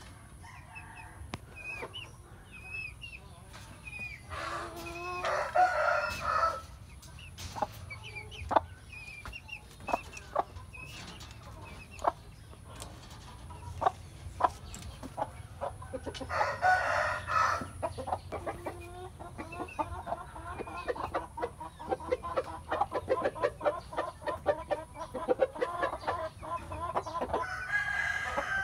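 Roosters crowing twice, each crow about two seconds long, with scattered clucks, small high peeps and pecking clicks. From about two-thirds of the way in, a chicken clucks rapidly and on and on until the end.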